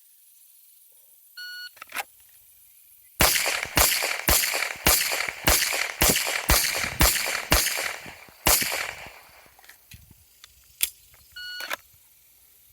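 Shot timer start beep, then ten 9mm pistol shots in quick succession, about two a second, the last after a slightly longer pause. A second timer beep follows near the end.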